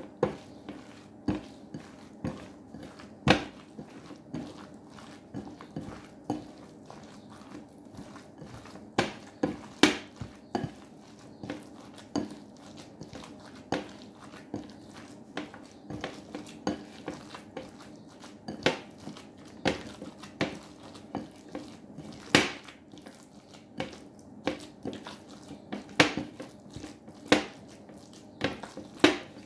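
Minced meat for kefta meatballs being mixed by hand in a glass bowl: irregular sharp clicks and knocks of fingers and the bowl against glass, about one or two a second.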